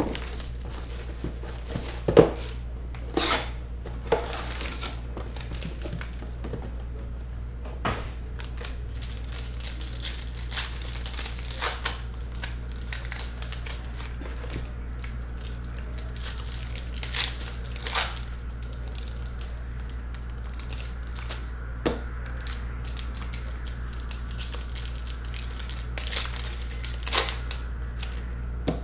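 Foil wrappers of Panini Certified football card packs being torn open and crinkled by hand, in irregular sharp crackles and rustles over a steady low hum.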